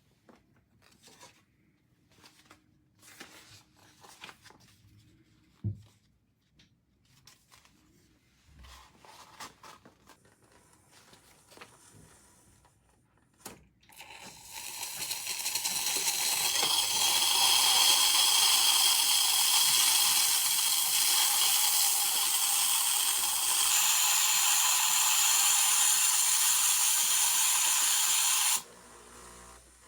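Espresso machine steam wand hissing steadily for about fourteen seconds, then shutting off abruptly. It is preceded by a few light clicks and knocks from handling the machine.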